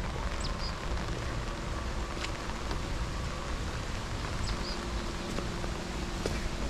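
Steady hiss of rain falling, with scattered ticks of drops. Two short high chirps are heard, about half a second in and again near four and a half seconds.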